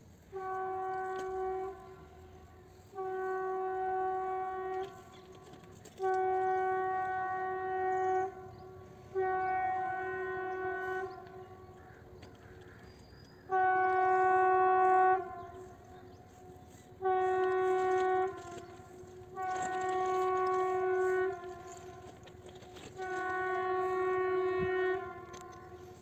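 Air horn of an Indian Railways WAP-7 electric locomotive sounding eight long blasts at one steady pitch, each about two seconds long, with short gaps between them.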